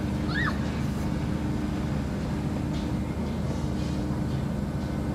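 A steady low hum with a faint tone running through it, and one short high chirp about half a second in.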